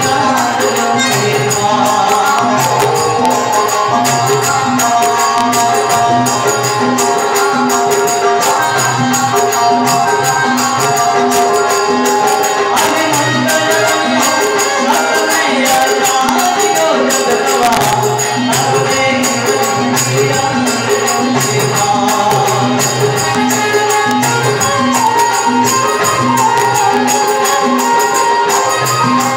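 Live Rajasthani devotional bhajan music: harmonium, a Roland Juno electronic keyboard and a dholak drum playing a steady, even beat, with bright jingling hand percussion on top.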